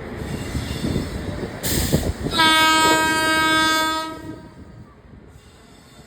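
Locomotive horn of a passenger train pulling into the platform, one steady blast of about two seconds over the rumble of the train, preceded by a short hiss.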